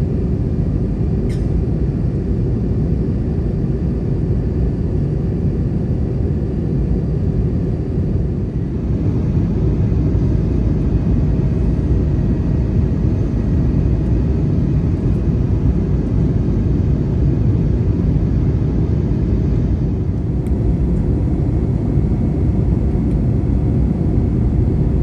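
Steady cabin roar of an Airbus A321neo in flight, heard from a window seat beside its Pratt & Whitney PW1100G geared turbofan, engine noise and rushing air together. The level rises slightly about eight or nine seconds in.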